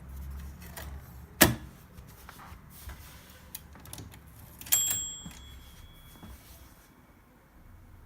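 Olympia SM3 portable typewriter mechanism: one loud clack about a second and a half in and scattered lighter clicks. Near the five-second mark comes a sharp strike with a ringing tone that fades over about a second and a half.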